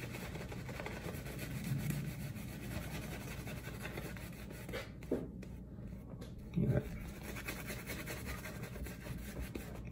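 Badger-hair shaving brush swirling and rubbing lather over a bearded face, a steady soft scrubbing. There is one short louder low sound about two-thirds of the way in.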